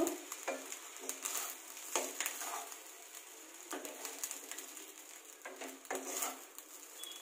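Wooden spatula stirring and tossing cooked fried rice in a steel kadai, with irregular scrapes and light knocks against the pan.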